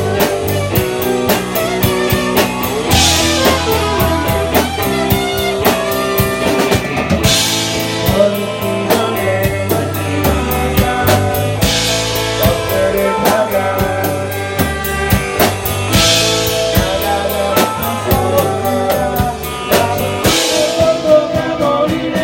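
A rock/blues band playing: drum kit keeping a steady beat with a cymbal crash about every four seconds, under bass and guitar lines.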